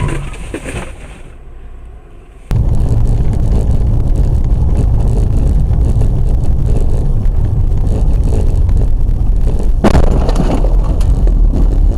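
Dashcam recording of a car driving on a wet road in the rain: a loud, steady rumble of road and wind noise that starts suddenly a couple of seconds in. Just before ten seconds in comes a sudden crash impact with clattering as the car crashes and the camera is knocked loose.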